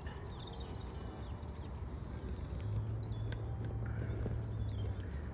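Small songbirds singing and chirping in quick high notes over a low outdoor rumble, with a steady low hum coming in about halfway through and stopping shortly before the end.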